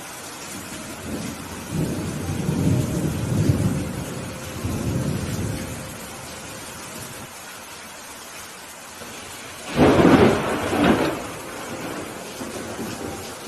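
Steady rain with thunder: a low rumble of thunder rolls for a few seconds soon after the start, and a louder, sharper thunderclap comes about ten seconds in.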